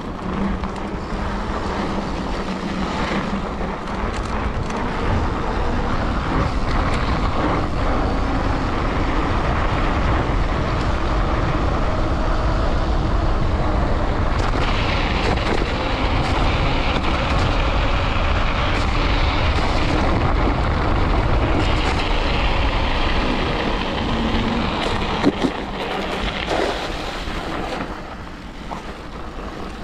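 Steady rushing wind on the microphone, mixed with the rolling hiss and crunch of Schwalbe Ice Spiker Pro studded mountain-bike tyres on packed snow during a fast descent. Scattered knocks from bumps, the sharpest about 25 seconds in.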